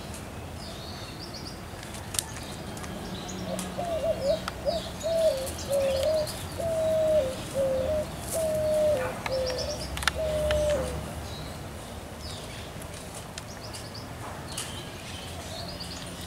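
A bird calling a run of about ten short, clear notes, each held and then dropping in pitch at its end, from about four seconds in until about eleven seconds in, with small birds chirping high and thin around it.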